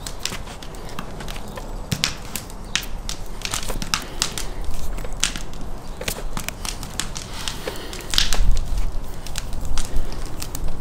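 Close-up handling sounds of binding a whole raw lamb carcass with thin wire: irregular clicks, scrapes and crinkles as the wire is pulled and twisted around the meat. About eight seconds in there is a louder stretch of rustling with a low rumble.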